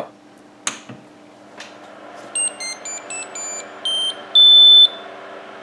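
Anycubic Vyper 3D printer switching on: a click of the power switch, then its fans start a steady hum, then a quick startup jingle of short electronic beeps at changing pitches, ending in one long, loud beep.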